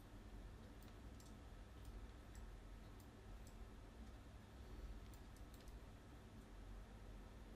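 Near silence with a low steady hum, broken by faint, scattered clicks of a computer mouse and keys.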